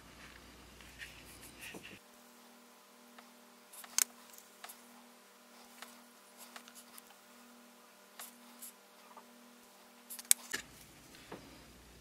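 Small metallic clicks and light scraping from a precision screwdriver working on an Orlik 153 petrol lighter's parts and a sheet of paper, with two sharper clicks about four seconds in and about ten seconds in.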